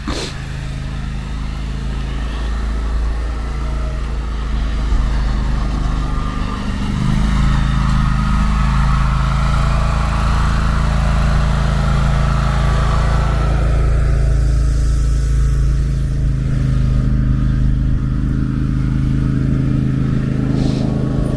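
Engine of a small John Deere tractor fitted with a sidewalk snowplow, running steadily close by. It grows louder over the first several seconds, then holds steady.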